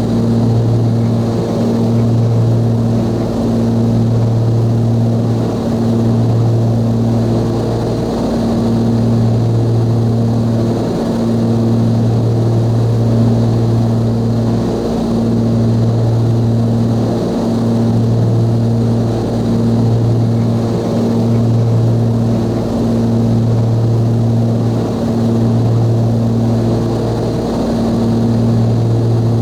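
The two turbocharged Continental TSIO-520 engines and propellers of a Cessna 340A running steadily as one loud, even drone, with a slow swell and fade about every two seconds.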